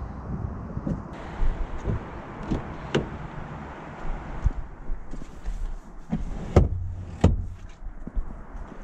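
A car's rear side door being opened and a person climbing into the back seat: sharp clicks and knocks, one about three seconds in and two louder thuds between six and seven and a half seconds in.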